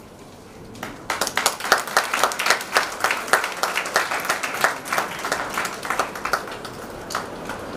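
Audience applauding: many hand claps start about a second in and thin out near the end.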